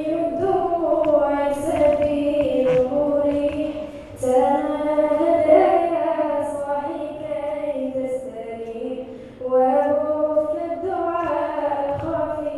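A young girl singing a slow melody solo into a handheld microphone over the stage speakers, in long held phrases with short breaths about four and nine seconds in.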